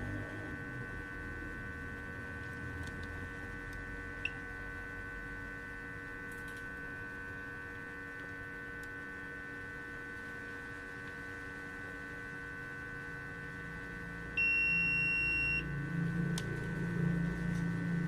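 Steady electrical hum, then near the end a digital multimeter's continuity buzzer beeps steadily for about a second as the probes touch the MOSFET's pins, the sign of a short across the MOSFET.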